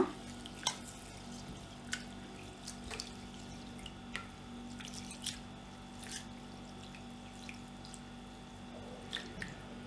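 A hand swishing and rubbing basmati rice in a bowl of water to wash it: faint, scattered splashes and drips.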